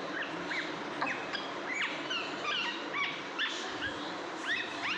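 Two-and-a-half-month-old baby parrot making a rapid series of short high chirps, each a quick glide up or down in pitch.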